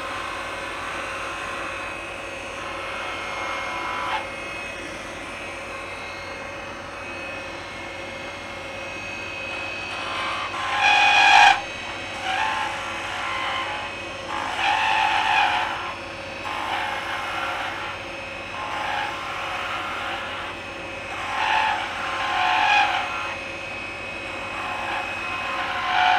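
Wood lathe running with a steady hum while a turning gouge cuts a spinning maple spindle. From about ten seconds in come a series of short cutting passes, each a brief rising hiss of the gouge peeling shavings off the wood, about one every second or two.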